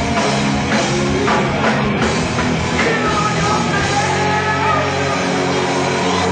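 Loud live rock music: a band playing with drum kit and a singer's voice over it.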